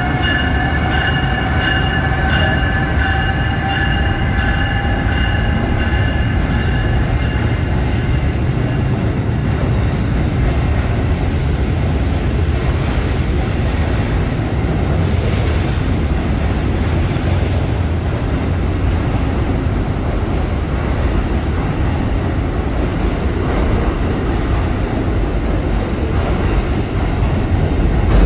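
Amtrak train hauled by a Siemens ACS-64 electric locomotive passing close by, a steady loud rumble of wheels on rail throughout. Over the first several seconds a high whine of several stacked tones sounds above it, then fades away.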